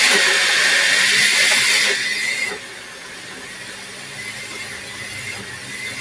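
Countertop blender running on a thick smoothie, a loud steady whirring with a faint whine; about two seconds in its sound drops sharply and it carries on running more quietly.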